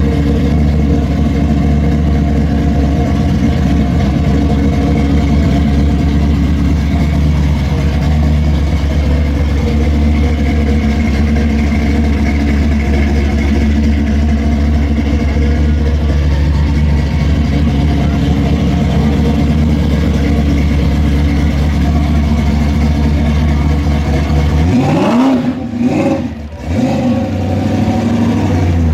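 Muscle car V8 engine idling steadily and loudly, then revved in a couple of quick blips near the end.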